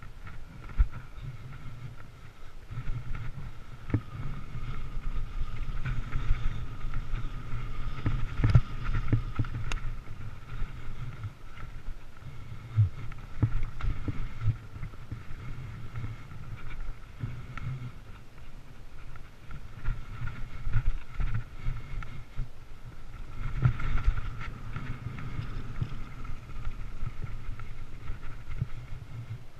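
Mountain bike riding down a dirt trail, heard close up: a continuous rumble of tyres and wind on the microphone, a steady whirring hum, and scattered sharp knocks and rattles as the bike goes over bumps.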